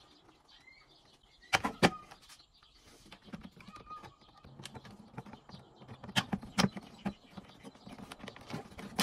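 Hard plastic dashboard trim being handled as an air vent is pressed and clipped into a new stereo surround. Several sharp clicks and knocks, two loud ones about one and a half seconds in and two more around six seconds, with lighter tapping between.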